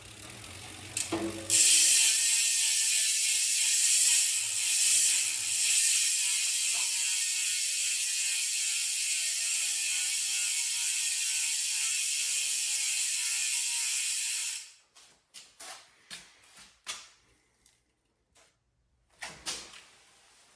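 Elite Wheels ENT gravel hub's freehub buzzing loudly as the wheel spins freely, a dense high-pitched ratcheting whirr. After about thirteen seconds it cuts off suddenly, leaving scattered single clicks.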